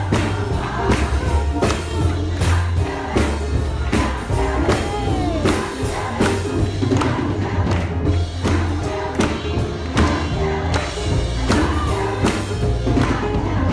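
Gospel congregational singing: a church choir and congregation singing over a deep bass and a steady percussive beat.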